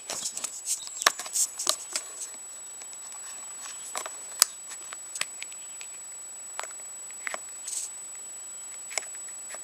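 Scattered light clicks and taps of hands working a small rubber dust boot over the plunger of a motorcycle clutch lever, several in quick succession at first and then only occasional ones.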